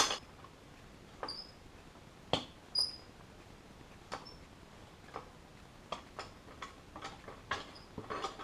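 Tire bead being worked over a polished aluminium motorcycle rim with a Baja No Pinch tire-mounting tool: irregular clicks and knocks of tool, tire and rim, with a few short high squeaks.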